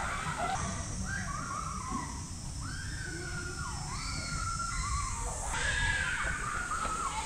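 Children shouting and calling out while they play at a distance, their voices rising and falling, over a steady low rumble.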